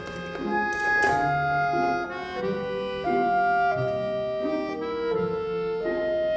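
Background music: a gentle instrumental melody of held, reedy notes that change pitch about once a second, with two short clicks in the first second.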